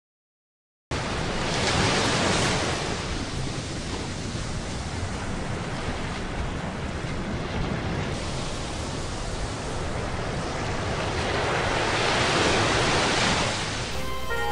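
Ocean surf washing on the shore, coming in suddenly about a second in and swelling twice, as waves break early on and again near the end.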